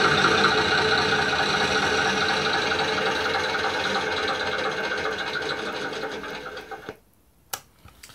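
Mtroniks 602 sound board playing a recorded Perkins diesel engine sound through a loudspeaker, running steadily and gradually getting quieter, then stopping abruptly about seven seconds in. A single sharp click follows.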